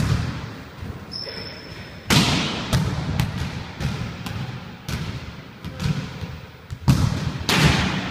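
Volleyballs being struck by players' hands and landing on a wooden gym floor: a string of sharp slaps and thuds at uneven intervals, echoing in a large hall.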